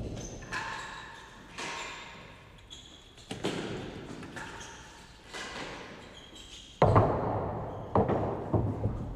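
A real tennis ball being struck by rackets and bouncing off the court's walls and floor. It makes sharp knocks every second or two, each with a long echo in the enclosed court. The loudest run of knocks comes about seven seconds in.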